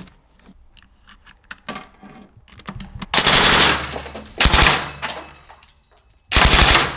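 Belt-fed 5.56 machine gun firing linked Arex MTX marking rounds in full-auto: three short bursts, the first about three seconds in. Before them, faint metallic clicks as the gun is handled and readied.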